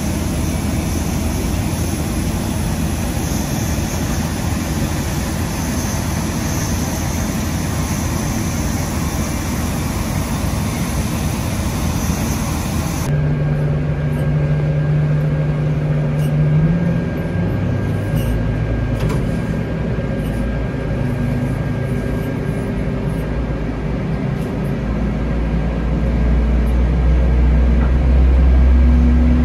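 A steady roar of aircraft ramp noise beside a Boeing 787-10. After a cut about 13 seconds in, a pushback tug's diesel engine is heard from the tug, humming at shifting pitches and growing louder near the end.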